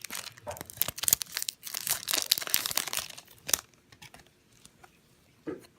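Wrapper of a Topps baseball card pack crinkling and tearing as it is pulled open by hand, stopping about three and a half seconds in, with a few soft rustles after.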